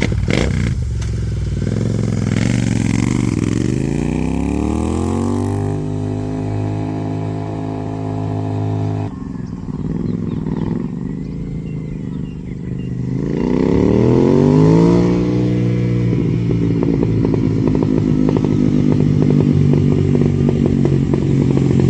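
Royal Enfield Continental GT 650's parallel-twin engine revved through an aftermarket AEW megaphone silencer. The pitch climbs and is held high, drops suddenly about 9 s in when the throttle is released, then rises again and is held high until the end.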